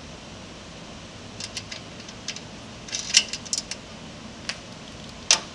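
Scattered small metallic clicks and clinks as a bolt, nut and metal bracket are handled and threaded together by hand. They start about a second and a half in, cluster through the middle, and come twice more near the end.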